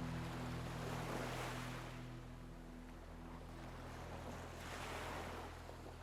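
Ocean waves washing onto a shore, two swells rising and falling about 1.5 and 5 seconds in. A soft, low musical drone fades away underneath in the first seconds.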